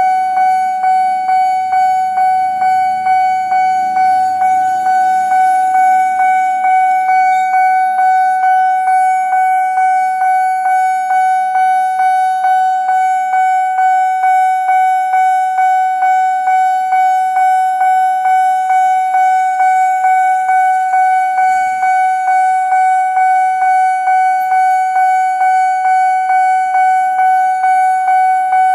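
Railway level-crossing warning bell ringing continuously in quick, evenly spaced dings, each stroke on the same steady high tone: the signal that the barrier is down and a train is coming.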